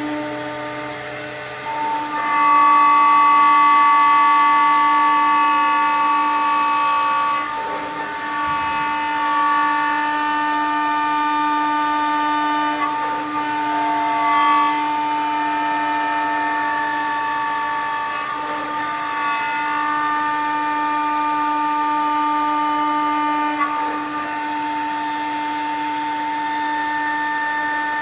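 Spindle of a Balestrieri Performance CNC machining centre running at high speed, a loud steady whine with several held tones, as it mills slots and drills holes in a workpiece. The whine gets louder about two seconds in and shifts slightly in tone several times as the tool cuts.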